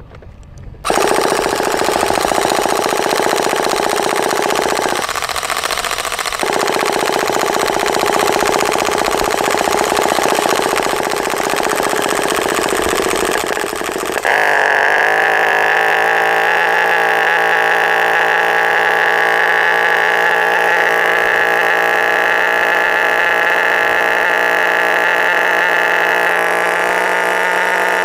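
HPI Roto Start electric starter spinning the car's HPI Nitro Star T-15 nitro glow engine through the back of the gearbox, stopping briefly about five seconds in and then spinning again. About fourteen seconds in the engine fires and keeps running with a steady note.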